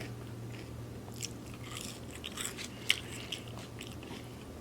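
A person chewing food close to the microphone, with scattered mouth clicks and smacks and one sharper click about three seconds in, over a steady low hum.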